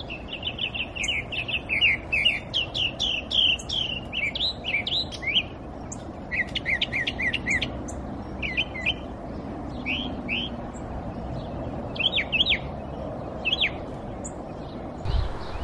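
Small songbirds chirping in quick runs of short, high, sweeping notes, over a steady low background hum. A brief low rumble comes in at the very end.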